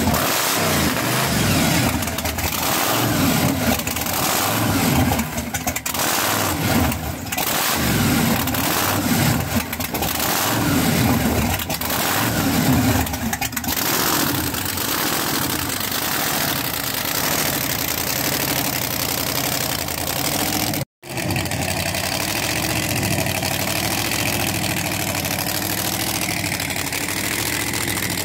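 Supercharged 540 cubic-inch big-block Chevy V8 with a 14-71 blower and E85 fuel injection, running loud. Over the first half it is blipped repeatedly, the revs rising and falling again and again, then it settles to a steadier idle.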